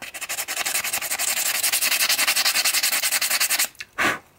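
150-grit sandpaper rubbed by hand in rapid back-and-forth strokes over the end of a hickory hammer handle where it pokes through the head's eye, smoothing off the rough wood. The rubbing stops a little after three and a half seconds in, with one more brief rub just after.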